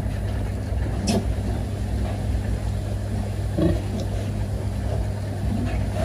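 Steady low machine hum of a pig barn, with a few brief faint sounds from the pen: a short sharp one about a second in and a low one a little past halfway.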